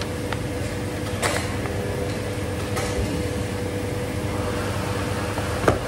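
Laundry-room machines humming steadily, with a held tone over a low rumble. A few light clicks and knocks break in, and a sharper knock comes near the end.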